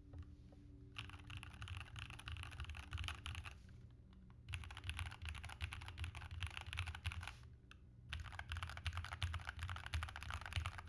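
Royal Kludge RK84 mechanical keyboard being typed on quickly, in three runs of rapid key clicks separated by two short pauses.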